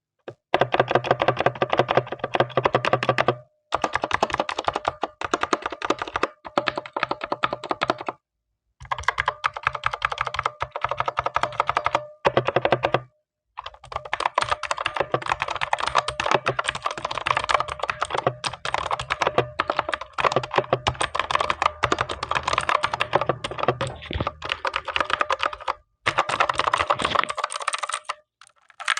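Gamen Titan 2 mechanical keyboard with blue switches being typed on rapidly: a dense run of sharp clicky keystrokes, broken by a few brief pauses.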